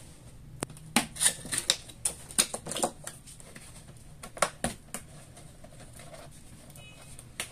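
Cardboard box tabs being pulled open by hand: a quick run of sharp clicks and scrapes in the first three seconds, then a couple more near the middle and one near the end.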